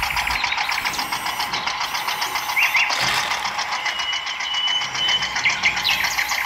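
Small electric gear motor of a homemade toy tipper trailer running with a fast, even ticking as it raises the bed and tips out its load.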